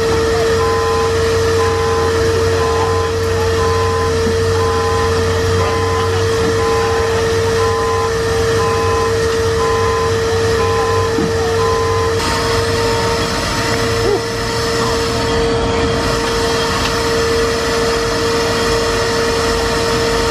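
A machine running with a steady drone and a constant whine, with a regular beep about once a second that stops about twelve seconds in, where the drone changes.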